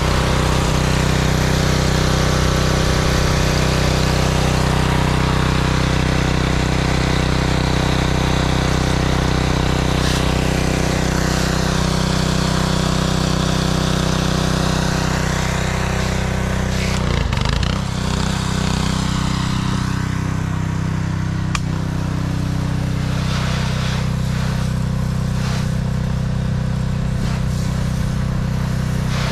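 Kohler gas engine of a Simpson 3100 PSI pressure washer running steadily under load, with the hiss of the high-pressure spray hitting a car's body. About two-thirds of the way through, the engine note dips and wobbles briefly, then runs on with a lighter spray hiss.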